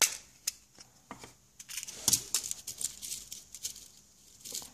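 Metal safety pins rattling and clicking in a small clear plastic box as fingers pick one out: a string of irregular light clicks, busiest about two seconds in.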